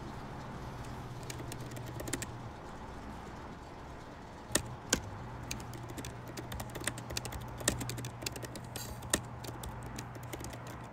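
Typing on a keyboard: irregular key clicks, a few early and then a quick run of them from about four and a half seconds in, over a low steady hum.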